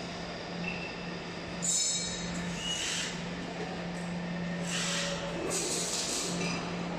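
Workshop machinery noise: a steady low hum with several short bursts of hiss.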